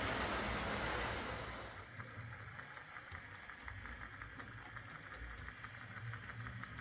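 Lima Class 08 shunter OO gauge model running on track, its small DC motor with a replacement armature humming steadily and fairly quietly. It is louder for the first couple of seconds, then drops to a softer run with many light clicks.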